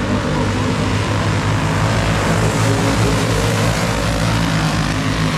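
Engines of several small dirt-track race cars running hard around the oval together, a steady overlapping engine drone.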